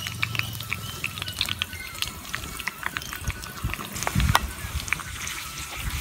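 Hot oil sizzling and popping in a metal pan as green chillies fry over a wood fire, with many small crackles throughout. A heavier low thump comes about four seconds in.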